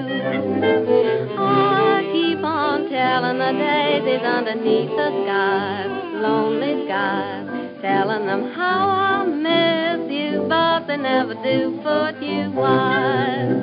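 Dance band music from a 1930 Columbia 78 rpm shellac record: the band playing the tune between the vocal refrains, with melody lines wavering in vibrato over a steady beat.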